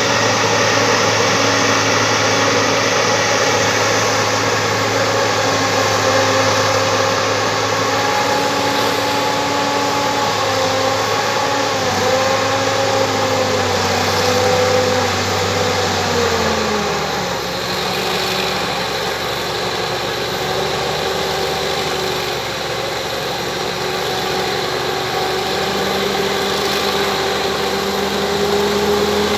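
Bulldozer's diesel engine running steadily; its note drops about two-thirds of the way through, then slowly climbs again.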